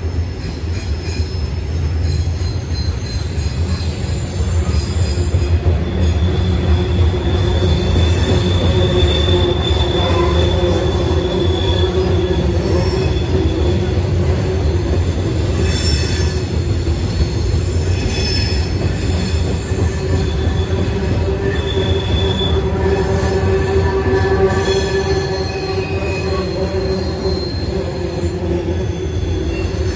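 Norfolk Southern freight cars rolling past close by: a steady low rumble of wheels on rail, with wheels squealing in several high tones that swell and fade. A few short knocks come midway.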